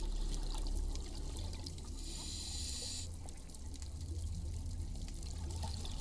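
Scuba diver breathing through a regulator underwater: a hiss of about a second midway, over a steady low rumble and scattered crackling clicks.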